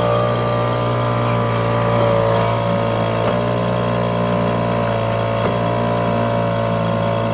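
Small outboard motor running at a steady speed, driving the boat along.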